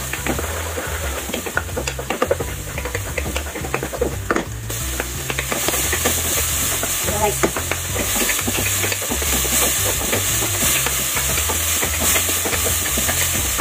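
Garlic and onion sizzling in hot oil in a non-stick pan while a wooden spatula scrapes and knocks against the pan as it is stirred. The sizzle grows louder about five seconds in.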